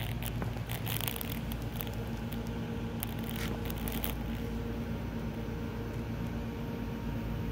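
Steady hum of powered SMT production equipment, a Koh Young KY-3030VAL solder paste inspection machine with its conveyors, idling with a few steady tones. Scattered faint clicks and rustles in the first four seconds.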